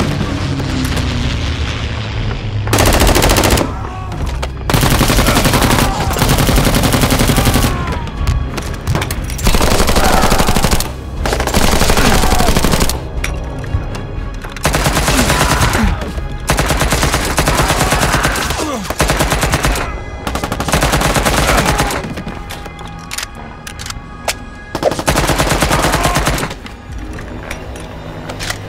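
Repeated bursts of rapid automatic-style blaster fire, about eight bursts of one to two seconds each, over background music.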